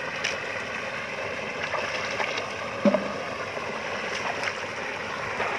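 Water sloshing and splashing as a person wades through knee-deep pond water, over a steady background hum, with one louder thud about three seconds in.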